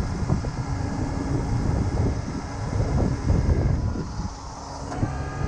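Heavy-duty wrecker's engine running under load while its hydraulic winch pulls a stuck work truck, a rumbling drone with a steady whine setting in about five seconds in.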